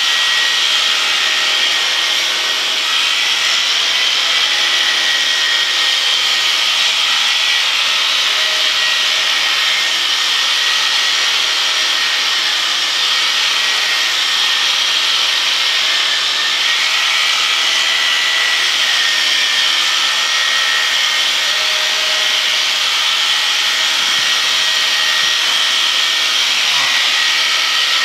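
Electric sheep-shearing handpiece running steadily with a high buzz as it cuts through a ram's wool.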